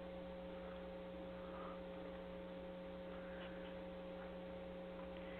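Faint, steady electrical hum, a low tone with a higher one above it, over a light hiss in the background of a talk-radio recording.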